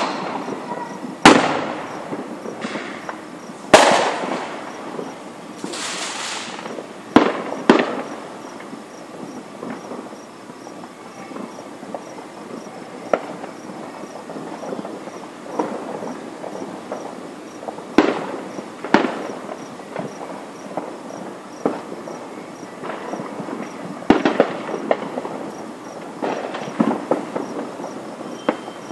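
Aerial fireworks going off in an uneven string of sharp bangs, heaviest in the first several seconds and again about two thirds of the way through, with a hissing burst a few seconds in and crackling between the bangs.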